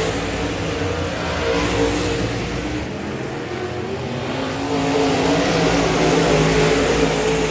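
Dirt-track modified race cars' V8 engines running hard around the track, their pitch rising and falling. The sound dips a few seconds in, then swells louder again as the field comes by.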